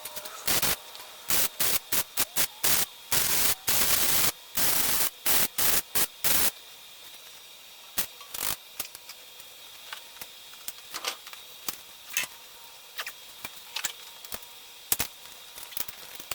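MIG welder laying a rapid series of short tack welds, crackling hiss in on-off bursts, then stopping after about six seconds; a few light clicks and taps follow.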